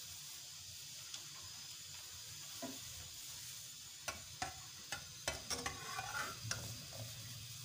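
A small steel cup stirring milk in a steel saucepan, clinking and tapping against the pan's side several times in the second half, over a low steady hiss.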